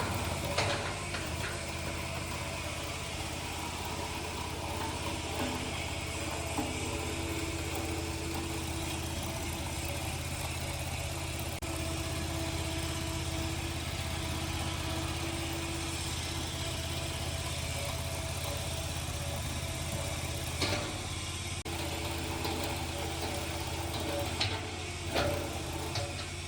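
Mini skid steer loader's engine running steadily with a deep even hum, while a higher steady whine from its hydraulics comes and goes in the middle. A few short clatters near the end.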